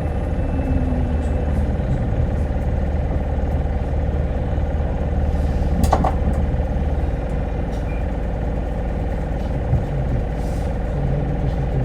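Cabin sound of a 2SG-HL2ANBP city bus: a steady low engine drone, with one short sharp clunk about six seconds in and a small knock near ten seconds.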